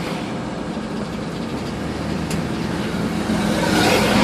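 Steady road and engine noise inside a moving vehicle's cabin, growing a little louder near the end.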